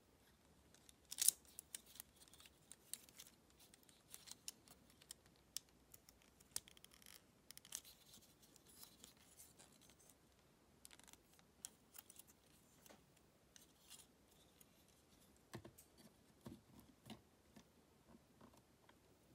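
Faint, scattered sharp snips and clicks of plastic model-kit parts being cut from their runners with hobby nippers and handled. The loudest snip comes about a second in, and a few duller plastic taps come near the end.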